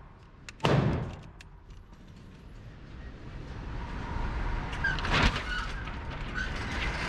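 A gunshot rings through the indoor range about a second in. Then the range's electric target carrier runs, its motor and trolley sending the paper target downrange, with another sharp crack partway through.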